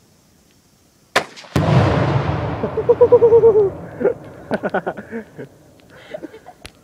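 A sharp crack from a .17-calibre rifle shot, followed under half a second later by the much louder boom of a pound of Tannerite exploding, which rumbles and fades over the next few seconds. A person's voice calls out as the boom dies away.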